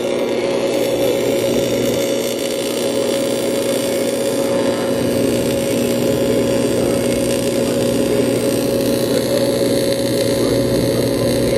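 Electric welding arc buzzing steadily, a constant hum with hiss over it.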